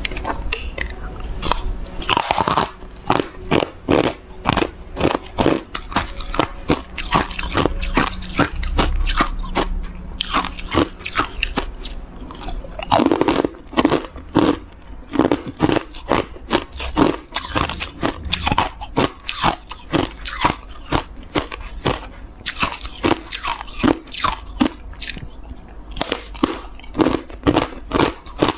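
Thin slabs of frozen matcha ice being bitten and chewed: sharp crunches in quick succession, a few every second, with denser crunching around two to three seconds in and again about thirteen seconds in.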